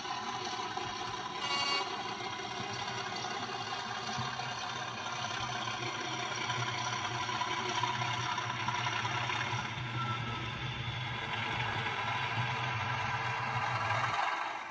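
Model class 37 diesel's DCC sound decoder playing the locomotive's English Electric engine under power through its small onboard speaker, mixed with the model running along the track. A brief high tone sounds about a second and a half in, and the engine sound cuts off just before the end.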